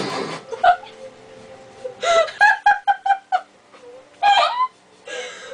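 Young women laughing: a run of rapid, evenly pulsed high laughter about two seconds in, then a short high shriek of laughter about four seconds in.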